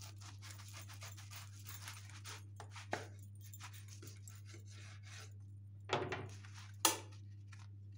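Kitchen knife sawing through crisp, toasted yufka pizza toast on a wooden cutting board: a dry, scratchy crunching of the crust, with two louder knocks about six and seven seconds in.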